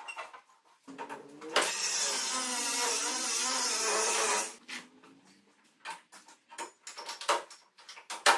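Angle grinder cutting metal for about three and a half seconds, its pitch wavering under load, then scattered light clicks and knocks.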